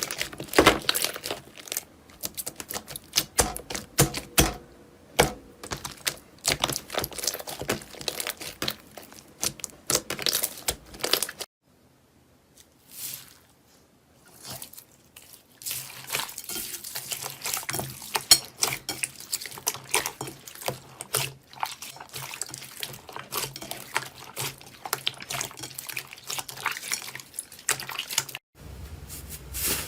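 Slime being squeezed and poked by hand, a fast irregular run of wet, sticky clicks and pops. It drops out briefly about halfway through, then the popping and squishing resumes.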